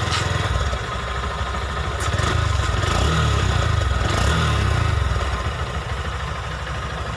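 Honda X-Blade BS6's 163cc air-cooled, single-cylinder, fuel-injected engine idling, heard at its twin-outlet exhaust just after being started. It gets a little louder in the middle, then settles back.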